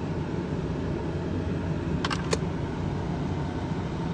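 Steady low rumble inside a moving car's cabin, road and engine noise with the air conditioning running, broken by two short clicks about two seconds in.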